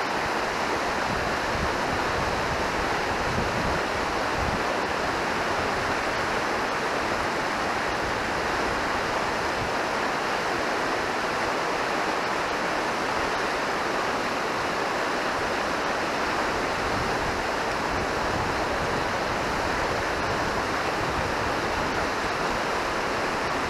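Fast mountain stream rushing over rocks in whitewater rapids, a steady, even rush of water.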